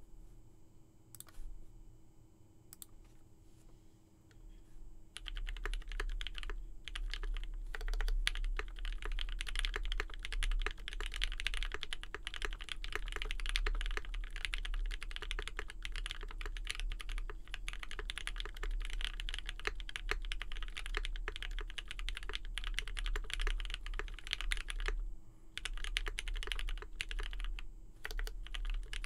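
Typing on a Mode65 custom mechanical keyboard with lubed Marshmallow switches, a POM plate and GMK keycaps: a dense, continuous run of keystrokes. Before it there are a few quiet seconds with two single clicks. The typing starts about five seconds in and breaks off briefly twice near the end.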